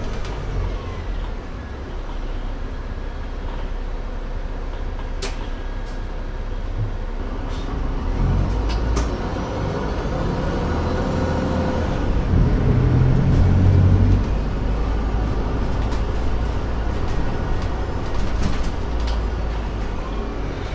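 Mercedes-Benz OM936 six-cylinder diesel of an Alexander Dennis Enviro 500 double-decker bus with a Voith gearbox, running under way. It pulls harder and louder from about eight seconds in, peaks a few seconds later, then eases off, with a few sharp clicks in the first half.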